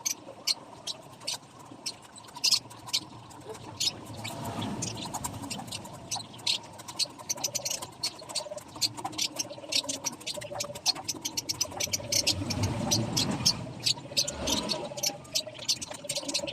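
Rapid, irregular light clicking and scratching, like small hard taps and scrapes, going on throughout.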